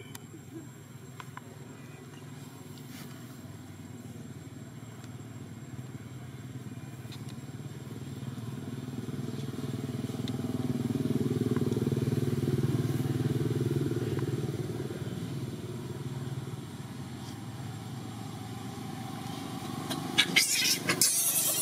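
A motor vehicle engine, most likely a motorbike, passing by: a steady low hum that swells to a peak around the middle and then fades. A few loud sharp clicks and knocks near the end.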